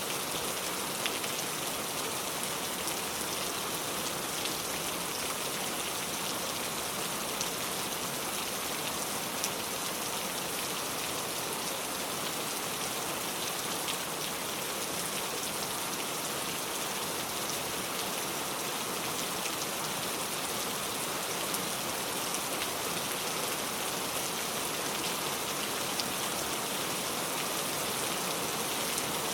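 Steady rain falling, a continuous even hiss with scattered sharper drop ticks.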